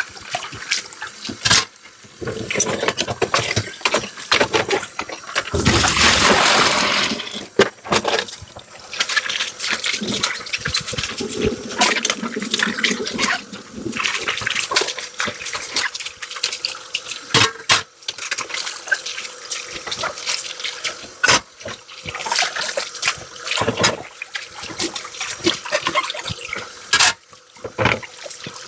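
Dishes being washed by hand at a sink: tap water running and splashing, with scattered clinks and knocks of dishes. A loud gush of water comes about six seconds in.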